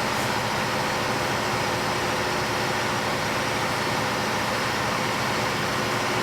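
Steady mechanical hum with a constant drone of several even tones, unchanging throughout.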